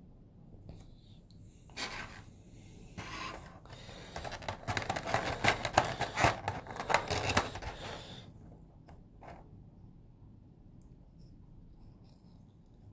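Hands handling small plastic parts: rustling and a dense run of small clicks and scrapes, busiest from about four to eight seconds in.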